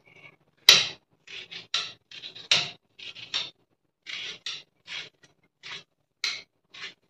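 Kitchen knife cutting through firm watermelon rind, slicing the white flesh away from the green peel: about a dozen short cutting strokes at an uneven pace, the loudest about a second in.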